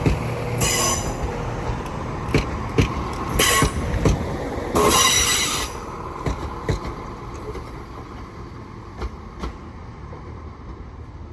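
A pair of Class 171 Turbostar diesel multiple units rolling slowly along the platform, their wheels squealing in several high-pitched screeches over the first six seconds, with sharp clicks of wheels over rail joints. The noise then fades as the train slows and moves away.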